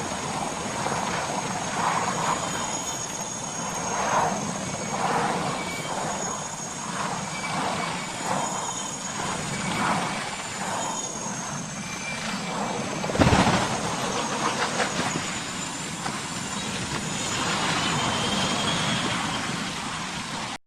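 Continuous vehicle noise with recurring surges, broken about two-thirds of the way through by a single sharp, loud bang.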